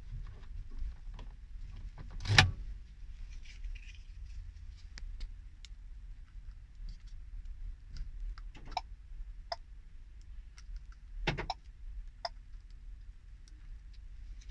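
Scattered small clicks and knocks inside a van's cab, with sharper knocks about two seconds in and about eleven seconds in, over a low steady hum.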